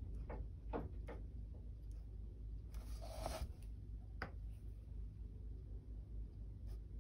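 Small sharp taps from a dotting tool and hands on a small canvas, with a brief rubbing scrape about three seconds in as the canvas is turned on a cutting mat, over a low steady hum.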